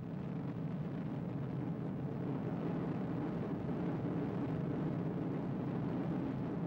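Propeller-driven fighter aircraft in flight, their piston engines making a steady, unbroken drone.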